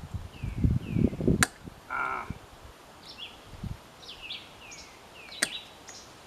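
Clunks and sharp metallic clicks of hand tools working at a motorcycle drive chain's master link, with a short squeak about two seconds in. The loudest clunks and a click come about a second in, and another click near the end. Small birds chirp repeatedly in the background.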